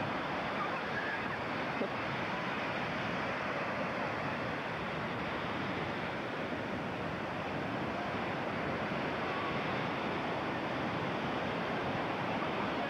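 Ocean surf breaking on the shore, a steady rushing wash of waves.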